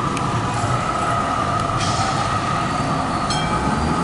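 Electric tram running past, a steady high whine over the rumble of its wheels on the rails.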